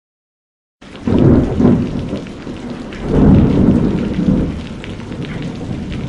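Thunderstorm: thunder rumbling over steady rain, starting just under a second in, with two loud swells of thunder, the second about three seconds in.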